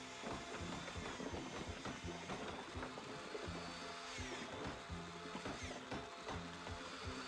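Cartoon soundtrack: music with busy clicking and clattering sound effects, and falling whistle-like glides a little after four seconds in.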